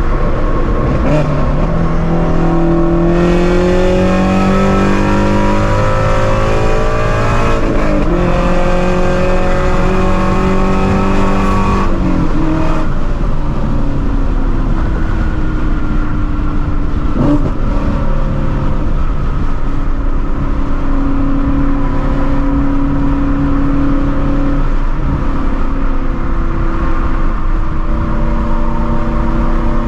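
Shelby GT350's 5.2-litre flat-plane-crank V8 through long-tube headers and a straight-piped exhaust, pulling hard through one gear with rising revs, shifting about 7.5 s in, and pulling again. It then backs off to lower, steady revs at cruise.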